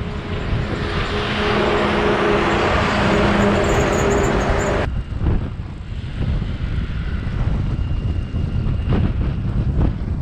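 A heavy lorry passing close by on the highway: a steady engine tone and tyre noise that swell for the first few seconds, then cut off abruptly. After that comes a steady wind and road rumble on the microphone of a bicycle in motion.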